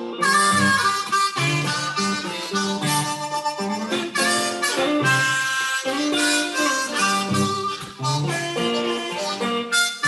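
Live harmonica playing a held, wailing melody over guitar accompaniment, with steady strummed chords underneath.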